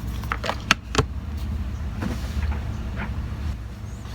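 A steady low hum with a few light clicks and taps in the first second and another about three seconds in.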